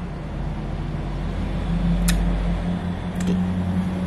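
A steady low machine hum, growing a little stronger about halfway through, with two short clicks about two and three seconds in.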